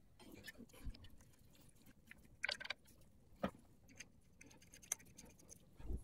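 Small metal clicks and taps of a disc brake caliper, its mounting adapter and bolts being handled and fitted. These are scattered single ticks, with a short quick cluster about two and a half seconds in.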